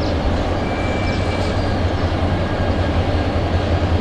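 Transnet Class 35-600 diesel-electric locomotives of General Motors EMD design running light at low speed, with a steady low engine drone as they draw closer.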